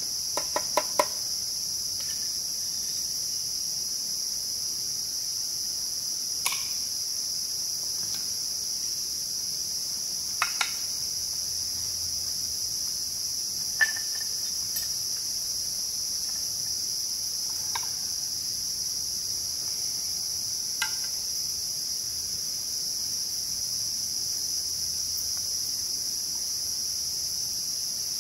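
Steady high-pitched drone of a rainforest insect chorus. A quick run of about five clicks comes in the first second, then single light taps of cooking utensils every few seconds.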